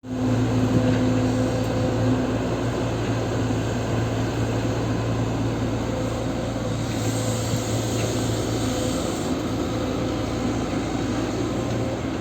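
XCMG XE140C 14-ton hydraulic excavator's Isuzu diesel engine running with a steady hum as the machine digs, with a brief higher hiss about seven seconds in.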